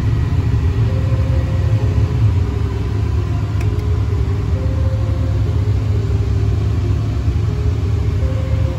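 Single-turbo 8.2-deck small-block Ford V8 in a 1994 Mustang GT idling steadily, a deep low rumble with no revving.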